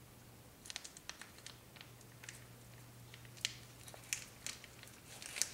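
Plastic sauce pouch being handled and torn open by hand: scattered crinkles and sharp crackles, over a low steady hum.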